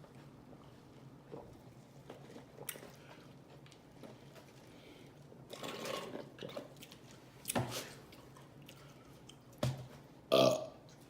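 Mouth sounds of a person eating, chewing and smacking, after a quiet stretch of room hum. They come in scattered bursts from about halfway through, with a couple of sharp clicks and a louder burst near the end.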